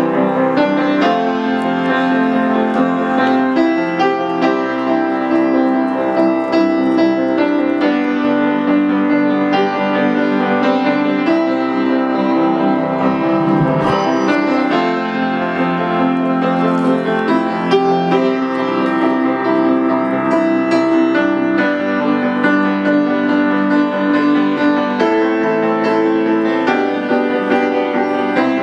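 Background music led by piano, with sustained held notes.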